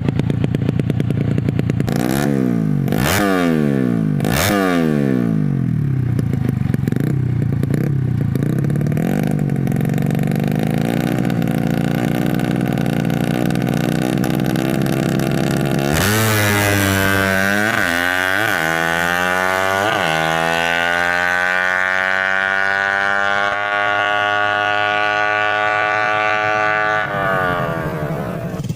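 Tuned 130cc underbone motorcycle engine being revved: three quick throttle blips in the first few seconds, then running lower. About halfway it revs up sharply, blips a few more times, and holds a high rev that climbs slowly for several seconds before dropping back near the end.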